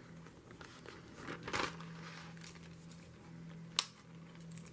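Soft rustling and crinkling of a clear acetate sheet in a paper frame as it is lifted and handled, with one sharp click nearly four seconds in.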